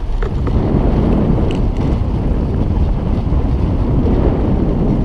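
Steady loud wind rush on the microphone of a moving Fresh Breeze Flyke paramotor trike on the road, with the trike's engine running beneath it.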